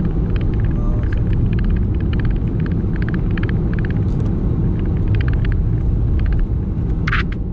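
Car driving on a snowy, icy road, heard from inside the cabin: a steady low rumble of tyres and engine, with repeated bursts of short crackling ticks.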